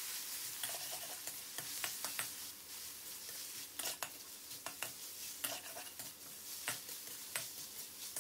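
Naem (fermented pork sausage) sizzling in a stainless-steel wok as it is stir-fried, with a metal spatula scraping and clinking against the pan at irregular moments over a steady sizzle.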